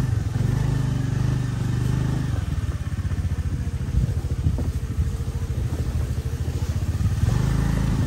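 A motor vehicle's engine running, steady for the first couple of seconds, then dropping to a lower, pulsing throb, and picking up again near the end.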